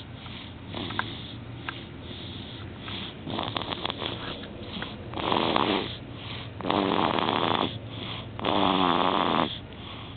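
A baby snoring in his sleep: soft snores at first, then four louder drawn-out snores, about one every second and a half, from about halfway through.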